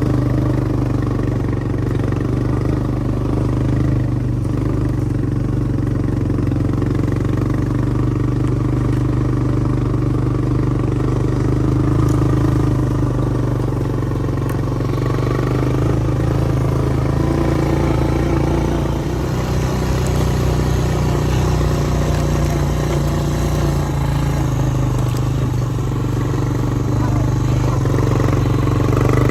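A vehicle engine running steadily, with a slight change in pitch about two-thirds of the way through.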